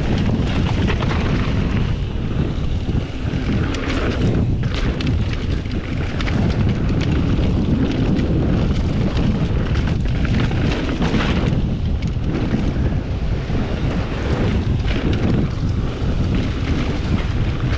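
Wind buffeting the microphone of a mountain bike rider's action camera on a fast downhill run. Under it, knobby tyres roll over a dirt trail and the bike gives off scattered clicks and rattles.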